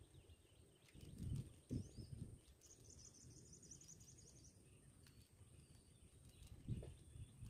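Near silence: faint outdoor ambience with a few soft low bumps, and a brief faint high chirping trill about three seconds in.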